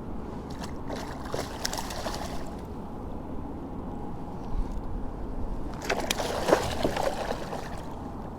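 Water sloshing and lapping around a kayak, with a few clusters of light knocks and rattles, about two seconds in and again about six seconds in.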